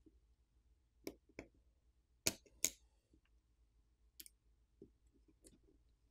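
Small clicks and taps of repair tools on a smartphone's parts during disassembly: two light clicks, two sharper ones about a second later, then a few fainter ticks.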